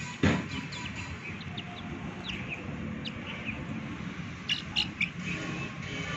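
Chicks peeping: many short, high, falling chirps, with a louder cluster about four and a half seconds in. A single sharp thump just after the start.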